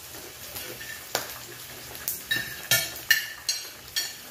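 Metal spoons and forks clinking against plates, about seven sharp ringing clinks that come thicker in the second half, over the faint steady sizzle of pork belly cooking on an electric tabletop grill.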